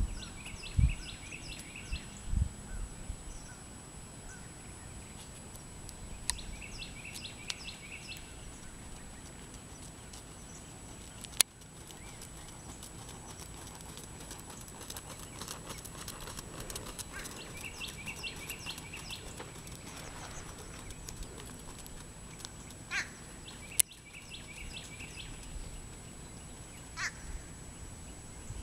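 A bird calling in short runs of quick chirps, repeated every several seconds over a faint steady outdoor hiss; two sharp clicks stand out, one near the middle and one a little later.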